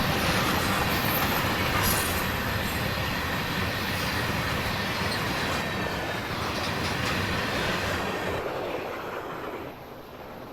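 Train rolling past on the rails: a steady rumble and rattle of wheels and cars that slowly fades, dropping off near the end.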